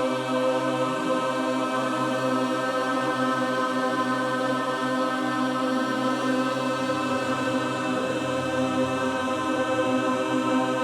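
A group of voices toning together, holding long sustained notes that blend into a steady chord-like drone, as in chakra toning. A lower note joins about two-thirds of the way through.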